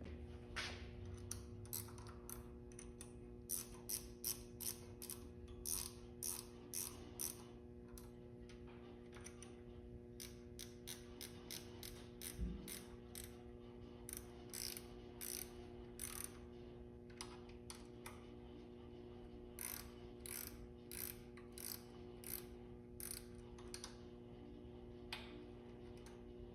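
Hand ratchet clicking in quick runs with short pauses between strokes, as the VANOS unit's bolts are tightened down.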